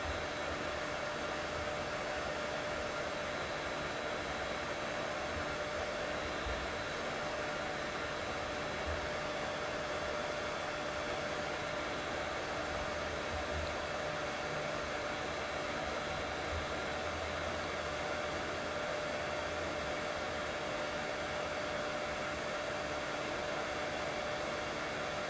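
Steady white noise played to soothe a baby: an even, unbroken rush with a faint steady hum tone underneath.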